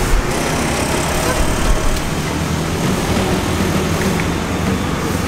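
Steady road traffic, with motor scooters passing.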